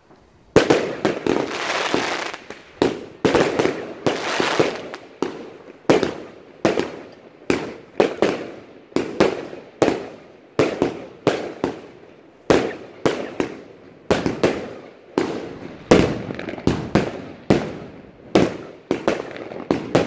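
Evolution Fireworks 'Serenity' firework firing shot after shot at a steady pace of about two sharp reports a second, each with a short fading tail. Crackling fills the gaps between shots a couple of seconds in and again around four seconds in.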